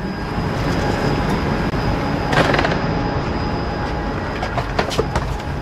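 Steady hum of a standing Lastochka electric train and platform noise while a wheeled suitcase is pulled along and into the carriage. There is a brief louder rattle about halfway through and a few short knocks near the end.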